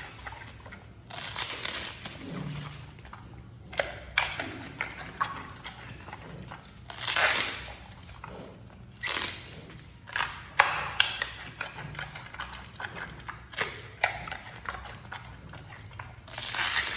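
Giant panda biting and chewing bamboo shoots: irregular crisp cracks and clicks, with short loud bursts of crunching several times as the shoots break.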